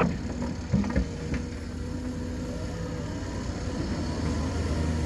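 Heavy diesel engine of a construction machine running steadily: a low rumble with a steady whine over it, and a light knock about a second in.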